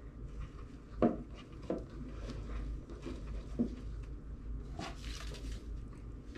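Crafting handling noise: a few light knocks, the sharpest about a second in, and a brief rubbing rustle a little before the end, as rope is wound and glued onto a cloche. A steady low hum lies underneath.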